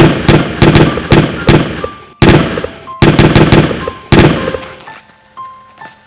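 A volley of gunshots, about a dozen sharp shots fired in quick irregular succession, each ringing out briefly. The firing stops about four seconds in.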